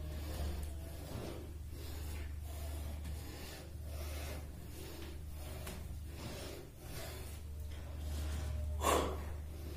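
A man breathing hard and rhythmically through a bodyweight workout of kicks and squats, each breath a noisy puff, with one louder, sharper exhale about nine seconds in.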